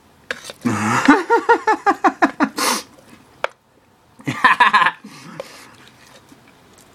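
A man making wordless vocal noises: a quick pulsing run of voiced sounds for about two seconds, a short sharp hiss, then another brief vocal sound about four seconds in.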